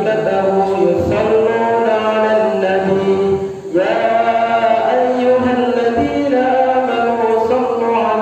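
A man's voice chanting a shalawat into a microphone in long held notes that slide from pitch to pitch, with a short breath about three and a half seconds in.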